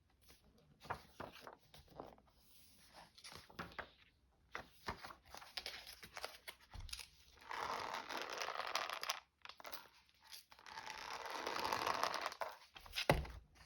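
Paper being handled with light rustles and taps, then two long rips of paper being torn, each lasting a couple of seconds, followed by a sharp tap near the end.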